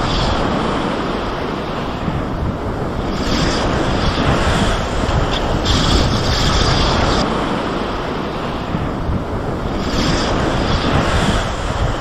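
Sea surf breaking on the shore, a loud rushing noise that swells and eases every few seconds, with wind buffeting the microphone.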